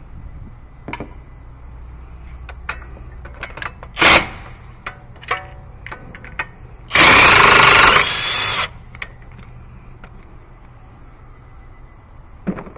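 Impact wrench hammering on the strut bolts of a car's front knuckle, about seven seconds in: hard for about a second, then lighter for about half a second more. Scattered clinks and knocks of hand tools and bolts come before and after it.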